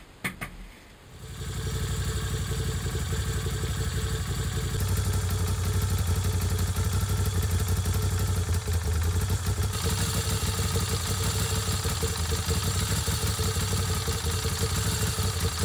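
Moto Guzzi V7's air-cooled transverse V-twin engine running steadily. It comes in about a second in, after a couple of sharp clicks, and gets brighter and louder at about five seconds.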